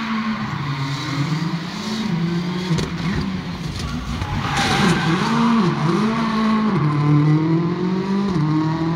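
Peugeot 307 WRC rally car's turbocharged four-cylinder engine revving hard through the corners, its pitch rising and falling repeatedly with quick dips around the middle as the driver lifts and shifts. A short rush of noise comes about halfway through.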